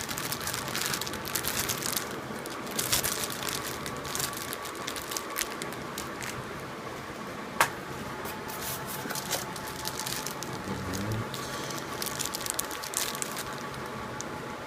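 Packaging being handled during unboxing: irregular crinkling, rustling and crackling, with one sharp click about seven and a half seconds in.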